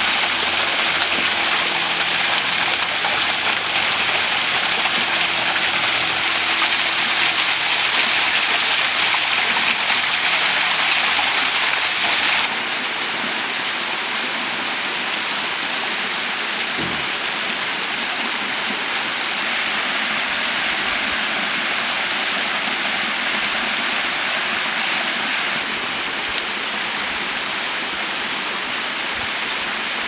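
Ripaljka waterfall at its thin autumn flow: water falling and sliding over mossy rock into a pool, a steady rushing splash. It drops a little in loudness about twelve seconds in and shifts slightly a few more times.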